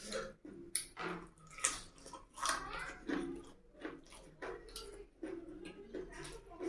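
Close-miked eating sounds: wet chewing and lip smacks as boiled egg soaked in curry is eaten by hand, in short irregular squishy bursts.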